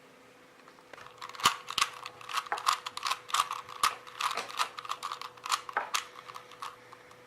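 Packaging being handled during an unboxing: a busy run of irregular clicks and crinkles that starts about a second in.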